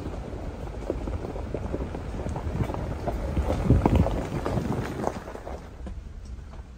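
Jeep rolling slowly along a gravel road: tyres crunching and popping loose stones over a low road rumble, loudest around the middle and easing off near the end.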